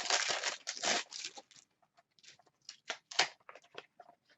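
Plastic wrapping on a small blind box being torn and crinkled, then a string of small clicks and rustles as the cardboard box is handled and opened.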